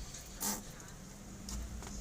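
Inside a car cabin while driving: a faint steady low hum, with one short rustling burst about half a second in.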